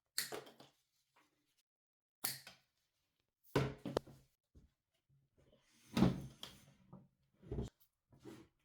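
A string of about six separate knocks and clunks, like hard objects being handled and set down, with short gaps between them; the loudest comes about six seconds in.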